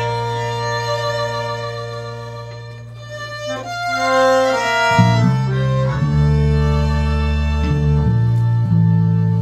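Live tango played by a trio of violin, bandoneon and electric bass guitar. A violin melody runs over a held low note, then about five seconds in the bass comes in loudly with long low notes.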